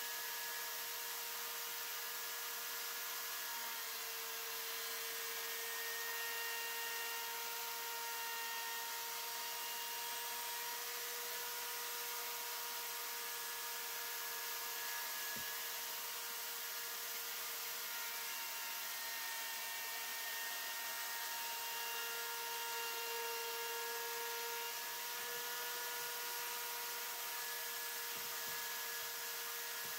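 Kobalt fixed-base corded router in its router table, running at its single full speed with a steady whine while routing a piece of scrap wood.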